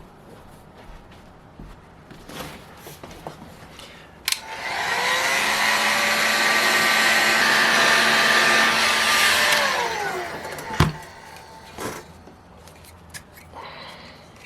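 Heat gun switched on with a click about four seconds in, its fan spinning up and blowing steadily for about five seconds, then winding down. It is heating a seized, oil-soaked YS-45FS model glow engine to free it so it can be turned over. A sharp knock follows just after the gun stops.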